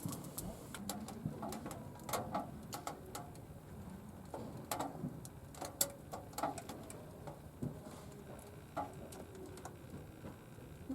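Irregular crackles and ticks from wood burning in a LOCOMO outdoor wood stove during its first firing, some sharp snaps standing out among them.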